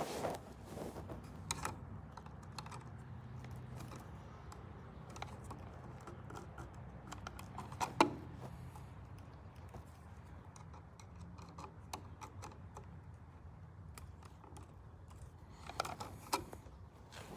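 Scattered light clicks and taps of hand tools and a metal electrical outlet being handled, with one sharper click about eight seconds in.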